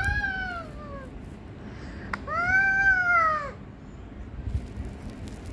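Toddler's high-pitched, drawn-out vocal calls, twice, each rising and then falling in pitch, meow-like; the second is longer and louder.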